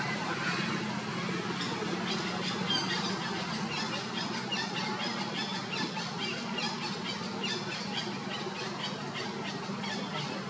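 Many short, high squeaks and chirps repeating quickly over a steady low hum, starting about a second and a half in.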